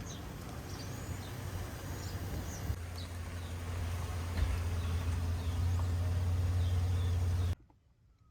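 Outdoor ambience of birds chirping over a steady low hum, which gets louder about three seconds in. Everything cuts off abruptly near the end, leaving quiet room tone.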